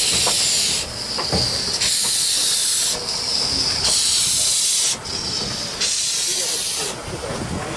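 W.G. Bagnall 0-6-2 tank locomotive moving slowly with its cylinder drain cocks open. Loud steam hiss swells and eases in turn with the piston strokes, about once a second.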